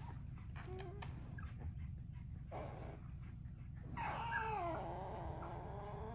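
Young American bully puppies, under three weeks old, whimpering: a few short squeaks, then about four seconds in one long wavering whine lasting about two seconds.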